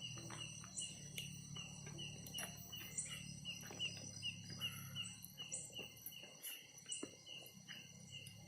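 Night insects calling: a cricket-like chirp repeating about three times a second over a steady high-pitched insect drone, with a low hum underneath.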